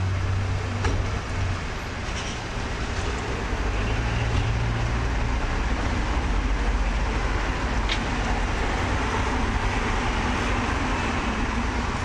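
Road traffic at a city intersection: cars, among them a taxi and a minivan, driving past over a steady low engine hum.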